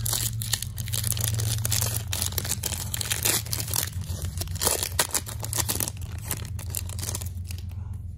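Foil trading-card pack wrapper being torn open and crinkled by hand, a dense crackling rip that eases off after about six seconds.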